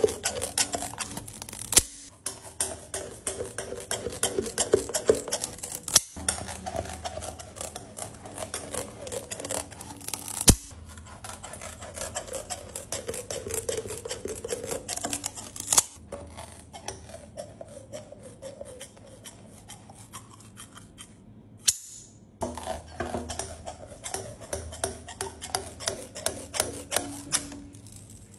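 Large steel shears snipping through sheets of warm, pliable hard candy, with frequent sharp clicks of the blades. The sound breaks off abruptly several times and starts again.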